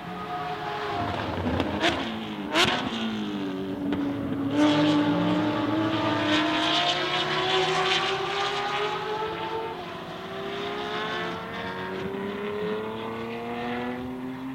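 Porsche 992 GT3 RS's flat-six through a Soul exhaust: the engine note drops on a downshift with two sharp pops about two seconds in. It then revs up hard under acceleration, with one upshift about ten seconds in.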